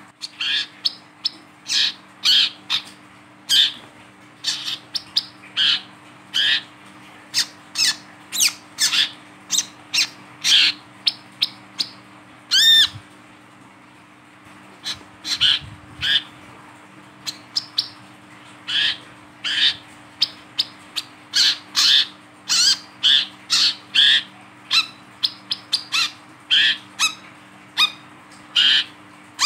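Male brown-throated sunbird (wiceh, kolibri kelapa) calling while held in the hand: a long run of short, sharp, high chirps, about two a second, with one longer note about 13 seconds in and a brief pause after it.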